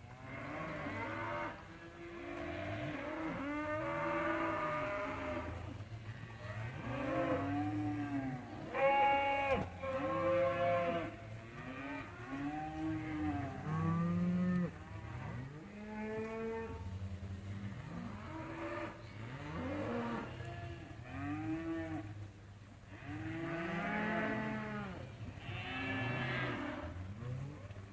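A herd of cattle mooing and bawling continuously, many overlapping calls from several animals at once, each call rising and falling in pitch over about a second.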